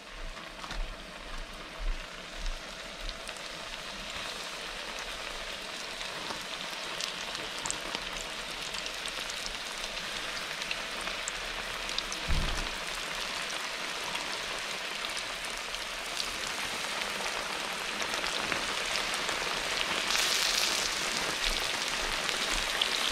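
Corn-flour-dredged fish fillets frying in hot oil in a cast-iron skillet: a steady crackling sizzle that grows louder as more fillets go into the pan. A few knocks in the first seconds and a low thump about twelve seconds in.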